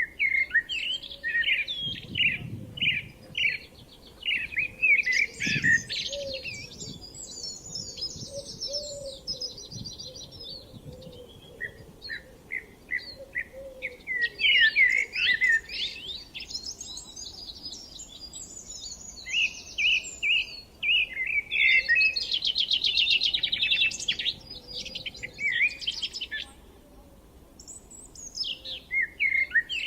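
Songbirds singing in spring: phrase after phrase of quick chirps and whistled notes with short pauses between them, and a fast, even trill past the middle.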